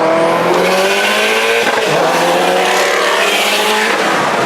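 Car engine accelerating hard: its pitch rises, drops briefly at a gear change about a second and a half in, then climbs again through a second pull before easing off near the end.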